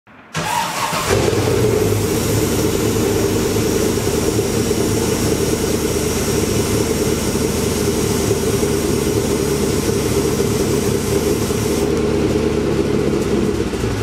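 Car engine cranking and catching about a second in, then running at a steady idle. Near the end a high hiss cuts off suddenly while the engine keeps running.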